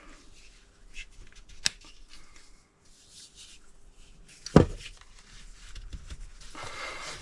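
Bottle jack parts being handled: a few light clicks, a sharp knock about four and a half seconds in, and a scraping rustle near the end.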